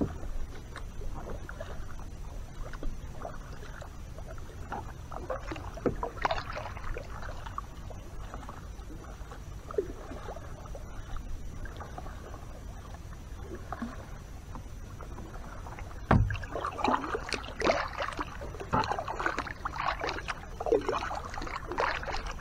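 Kayak paddle strokes in calm water: the blades dipping and pulling with drips and small splashes over a low wash of water. The strokes grow busier and louder about two-thirds of the way in, starting with a single knock.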